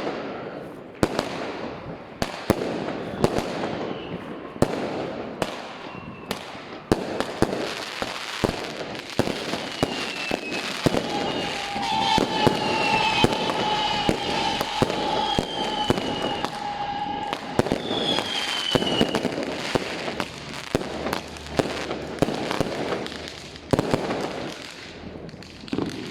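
Many fireworks and firecrackers going off at once: a dense, irregular run of sharp bangs and crackles. Whistling fireworks glide down in pitch now and then, and a steady whistle holds for several seconds about halfway through.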